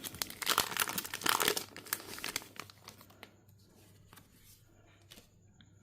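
Foil wrapper of a Pokémon trading card booster pack crinkling and tearing as it is opened, dense for the first two seconds or so, then dying away to a few faint ticks.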